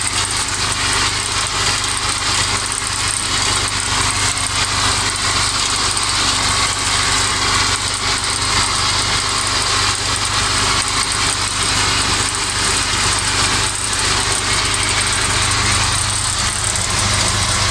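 IMT 539 tractor's three-cylinder diesel engine running steadily under load while driving a Kuhn mower through tall grass, the engine and the mower's running noise blended into one even din.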